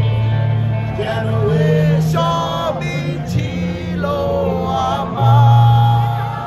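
Live band music over a concert sound system with singing, heard from within the crowd: held bass notes that change every second or so under a wavering vocal line, swelling louder about five seconds in.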